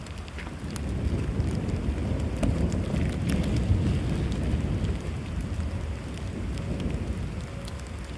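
Skateboard wheels rolling over wet pavement, a low rumble that swells as the board passes close by and then fades as it rolls away, over the patter of falling rain.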